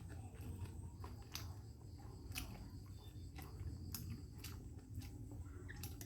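A person eating, with faint irregular chewing clicks over a low steady hum.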